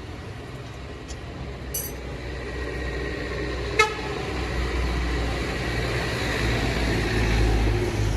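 Low street-traffic rumble that grows louder, with a brief high metallic ring about two seconds in and one sharp metallic clink about four seconds in.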